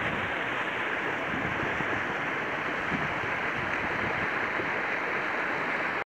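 Shallow river running over stony riffles: a steady rush of water.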